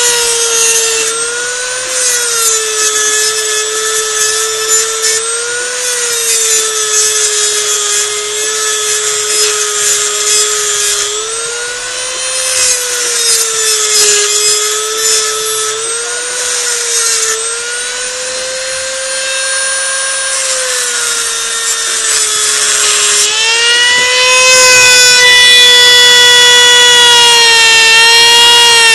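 Cutting wheel on a high-speed rotary tool grinding a notch into a metal stock plate: a steady high whine that sags in pitch each time the wheel bites into the metal and climbs back as it eases off, over a gritty grinding hiss. It gets louder and higher near the end.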